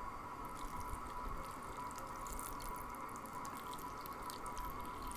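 Water poured in a thin stream from a steel vessel into a bowl of mashed bael fruit pulp: a faint, steady trickle.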